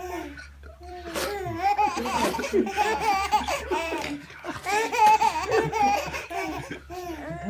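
A baby giggling in repeated short bursts of laughter, set off by a man's sneezes.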